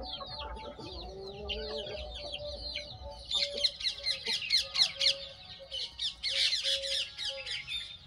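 Desi chickens clucking and calling, with many quick, high, falling chirps that grow denser and louder from about three seconds in.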